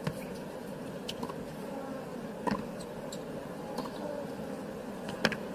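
Tennis ball struck by racquets in a baseline rally: two sharp, loud strikes about two and three-quarter seconds apart, with fainter hits in between, over a steady stadium crowd murmur.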